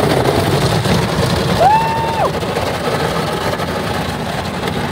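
Automatic car wash's spinning cloth brushes scrubbing against the car's side window and mirror, heard from inside the car as a loud, steady slapping and spraying wash of noise. A short held high tone sounds once about two seconds in.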